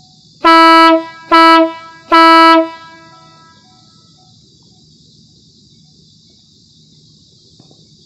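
150 dB air horn sounding three short, very loud blasts of one steady note within about two seconds, the third a little longer and trailing off briefly afterwards.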